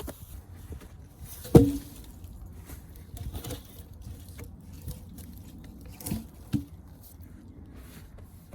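Wood being handled: one loud, sharp knock with a brief ring about a second and a half in, then two lighter knocks around six seconds in, with scraping and rustling between them.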